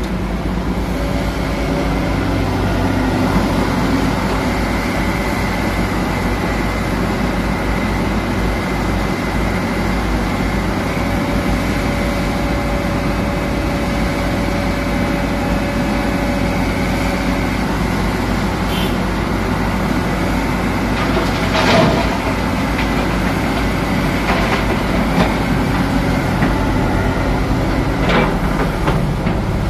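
Komatsu PC200-7 excavator's diesel engine running steadily under working load, with a hydraulic whine over it that drops away a little past halfway. A few sharp knocks of rock falling come later, the loudest about two-thirds of the way through, as the bucket is emptied into the dump truck.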